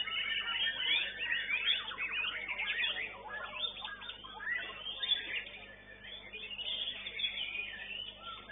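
White-rumped shama (murai batu) singing a rapid, varied string of whistled and chattering phrases, with a short lull a little past the middle before it picks up again.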